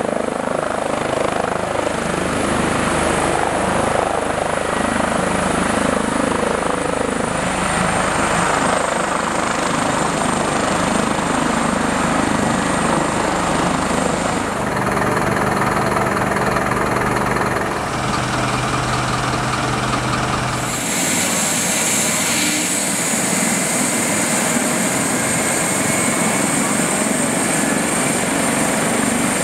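Airbus Helicopters H145 rescue helicopter's twin turbines and rotor running, first hovering low and settling onto the road, then turning on the ground. A high turbine whine sits over the rotor noise, its pitch dropping slightly about eight seconds in, and the tone changes abruptly twice later on.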